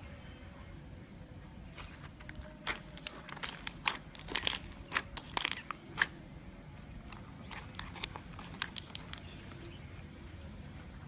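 Crunchy jelly cube slime being squished, giving a run of sharp crackles and pops. They start about two seconds in, come thickest in the middle and thin out toward the end.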